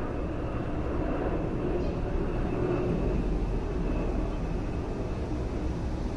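Steady low background rumble, with a faint high, thin steady tone above it.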